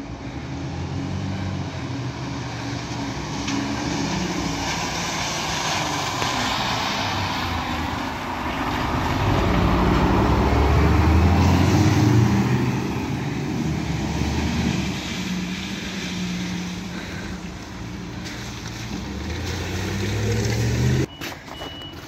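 Fire engine's diesel engine running as the truck drives up and passes close by, loudest about ten to twelve seconds in, then fading as it moves off. Near the end the engine sound drops away sharply and a high, repeated beeping starts, typical of the truck's reversing alarm.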